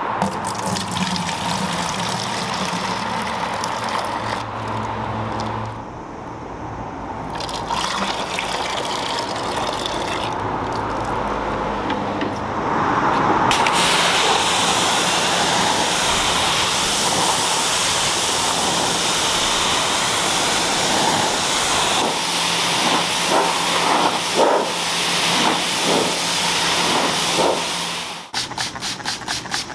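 Dirty water pouring from a wet vacuum's tank into a plastic bucket. From about halfway, a pressure washer sprays rubber car floor mats: a steady hiss over a low hum, turning to a fast pulsing near the end.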